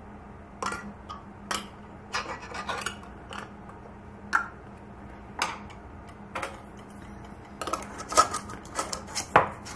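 Metal canning lids being set onto glass mason jar rims and metal screw bands being threaded on, making small clinks and clicks of metal on glass. The clicks come about a second apart at first, then in a quick cluster near the end as a band is turned on.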